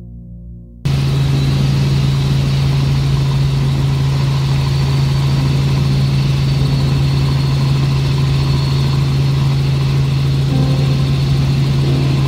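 Helicopter in flight heard from inside the cabin: a loud, steady engine and rotor drone that cuts in abruptly about a second in and holds unchanged.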